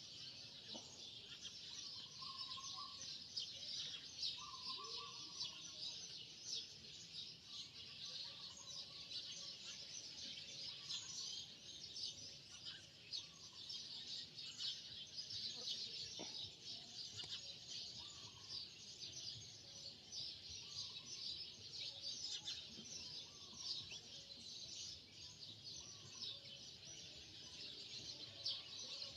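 A dense, steady chorus of high-pitched bird chirping, with scattered fainter, lower chirps among it.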